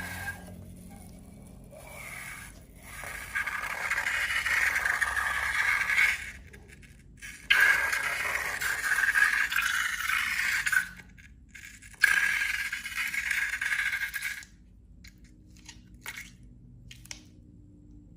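Scraping in three stretches of a few seconds each, each starting and cutting off abruptly, with a few light clicks between them.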